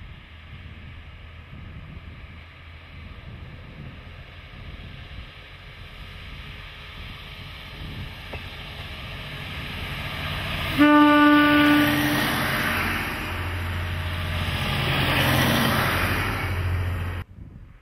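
KiHa 40-series diesel railcar approaching and passing close by, its diesel engine and wheels on the rails growing louder. It sounds one short horn blast of about a second, roughly eleven seconds in. The passing noise cuts off suddenly near the end.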